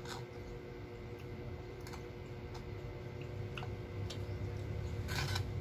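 Metal fork clicking lightly and scraping against a plastic food tray while twirling black bean noodles: scattered single clicks, then a short scrape about five seconds in.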